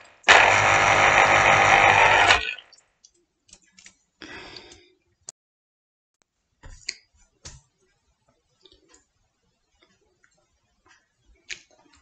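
Electric citrus juicer running with an orange half pressed onto its spinning reamer, a loud steady whirring grind that cuts off suddenly about two and a half seconds in. A few faint knocks and a short rustle follow.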